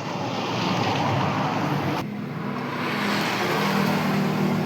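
Road traffic passing: motor vehicle engine and tyre noise swelling up, breaking off sharply about two seconds in, then a second vehicle swelling past.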